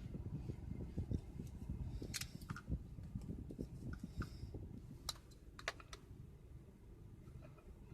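Faint scattered clicks and taps from handling a small plastic Bluetooth receiver and phone while pairing, over a low rumble.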